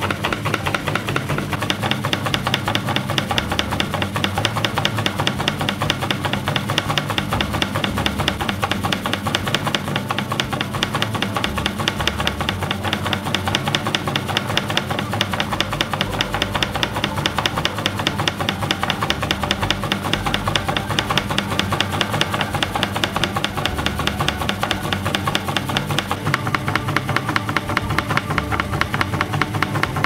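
Washing-machine motor driving a wooden crank and connecting rod back and forth in a slide, clattering in a fast, even rhythm, with background music over it.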